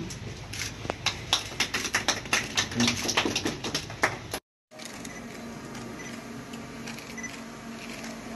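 Scattered hand clapping from a small group: sharp, irregular claps for about four seconds, then cut off abruptly. After that, a steadier background of indistinct voices and low room hum.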